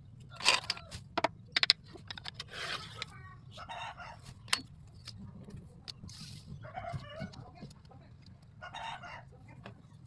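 Chickens clucking every second or two, mixed with several sharp knocks, the loudest about half a second in and a single one midway.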